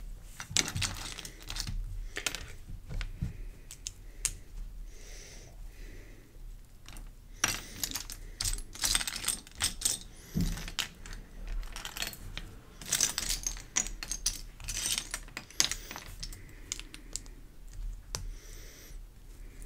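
Plastic Lego pieces being handled and snapped together: an irregular run of small sharp clicks and clatters, with bursts of rustling as pieces are sorted.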